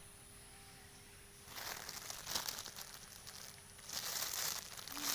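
Irregular crinkling and rustling in several bursts, starting about a second and a half in.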